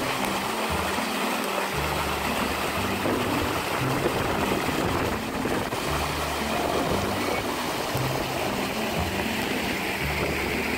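Creek water rushing down a small rock cascade, a steady rushing splash, with background music and a low bass line playing under it.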